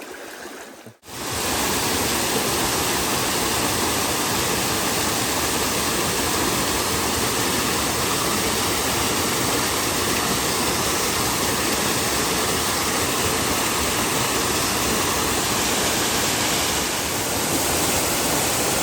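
Steady rushing water of a waterfall, starting abruptly about a second in.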